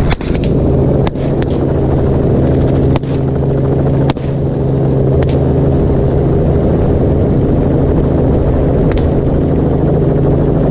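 Helicopter running in flight, a loud steady drone of rotor and engine. A few brief sharp clicks cut across it.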